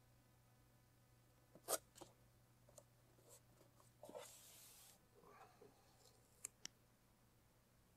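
Faint handling sounds of a vinyl rocker graphic on its backing being positioned and pressed onto a car door by hand: a sharp tap about one and a half seconds in, a brief rubbing hiss of hand on paper around four seconds in, then a couple of small clicks.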